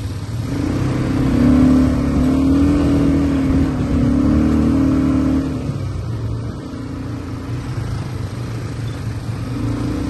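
ATV engine running under throttle: it revs up about half a second in and holds, eases off around six seconds, then picks up again near the end.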